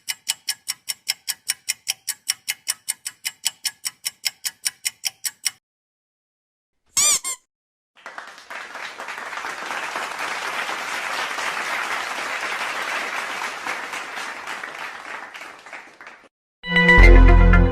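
A string of stock sound effects. First comes ticking, about four ticks a second for some five seconds, then a brief wavering whistle-like sweep. After that comes a crowd applauding for about eight seconds, and a loud, deep musical hit starts near the end.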